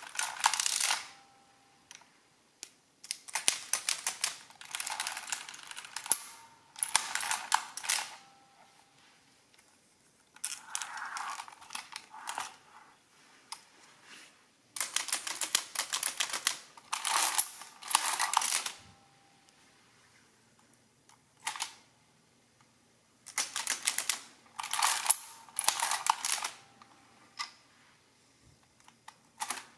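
Precisa 102-1 mechanical adding machine with its case off, its hand crank pulled again and again: each pull is a burst of clattering and clicking from the printing heads rising and the hammers striking them from behind. The bursts come one to two seconds long with short quiet pauses between.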